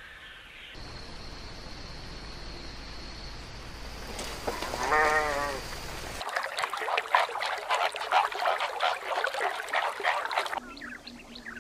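A goat bleats once, a single wavering call about five seconds in, over a steady outdoor background. After it, a dense run of rapid crackling noise, the loudest part, runs for about four seconds and then stops abruptly.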